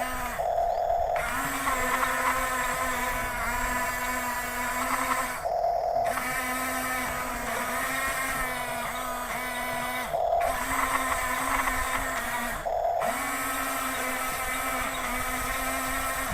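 Small electric motors and plastic gearboxes of radio-controlled toy construction vehicles whining as they drive, in stretches of about four seconds that break off briefly three times, with a higher hum showing in each pause.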